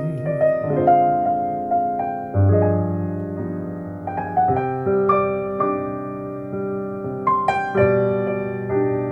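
Solo piano playing slow chords and single notes that ring and decay, with a quick run of notes about seven seconds in, played back through Yamaha NS-1 classic loudspeakers.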